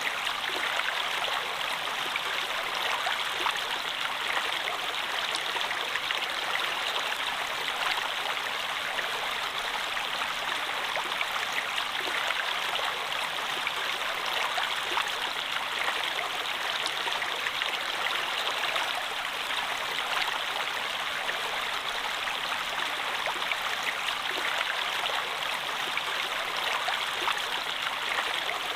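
Water of a stream running over rocks, a steady splashing and babbling with small droplet ticks.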